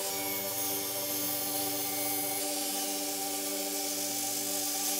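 Power saw blade cutting through a block of maple: a steady, high, hissing noise that eases about two and a half seconds in. Under it, ambient background music with held tones.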